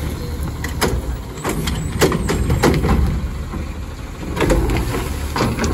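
Garbage truck engine running, with irregular clanks and knocks over it.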